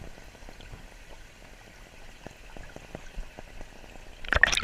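Pouring rain: a dense patter of raindrops, with a few louder knocks near the end.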